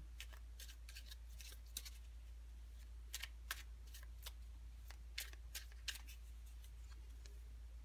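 Tarot cards being shuffled and handled by hand: a scatter of light, quick card snaps and clicks, over a faint steady low hum.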